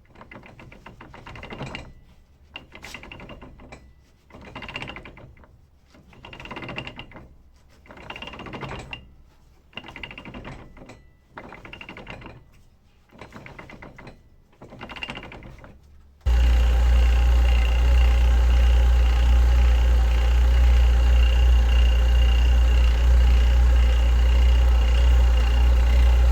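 Lada Niva Travel transfer case rattling and knocking while driving: a part of the four-wheel-drive engagement has come loose. For the first sixteen seconds it swells and fades about every two seconds, then it cuts suddenly to a much louder, steady rumble with a deep drone.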